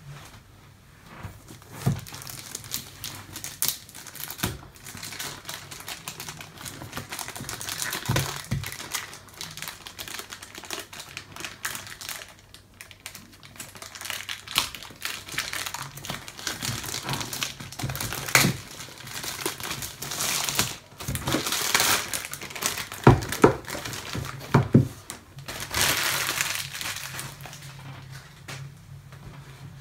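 Plastic shrink-wrap being torn and peeled off a cardboard product box, crinkling and crackling with many irregular sharp clicks and taps as it is handled.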